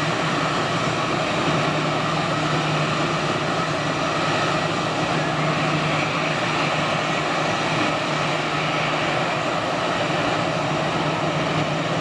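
Fokker 100 jet's twin rear-mounted turbofan engines running at takeoff power as the takeoff roll begins: loud and steady, with a strong low hum and fainter steady whines higher up.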